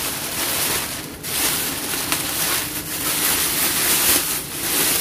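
Thin plastic carrier bags rustling and crinkling as hands pull them open and unwrap a bagged package. The crinkling comes in uneven swells, with a short lull about a second in.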